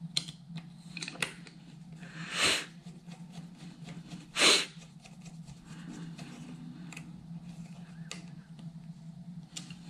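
Amplifier case cover being handled and pushed into place: a few small clicks, then two short scraping slides about two seconds apart, over a steady low hum.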